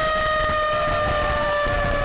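An emergency vehicle siren holds one steady pitch that sinks slowly, with fainter rising and falling siren tones under it. There is a rough low wind rumble on the microphone.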